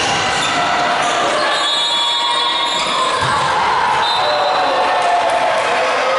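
Volleyball rally in a reverberant gymnasium: the ball struck hard at the start, with players' voices calling out amid the echoing hall noise.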